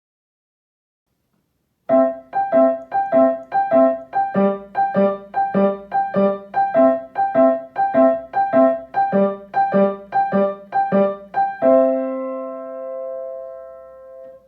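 Piano playing a bouncy skipping figure in repeated chords, the sound effect for skipping in children's rhythmic movement play. It starts about two seconds in and ends on a held chord that rings out and fades.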